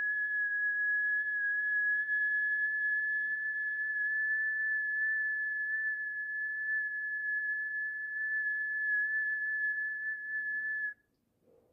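A single high, pure, whistle-like tone held steady for about eleven seconds, settling slightly lower in pitch at the start, then cutting off sharply near the end.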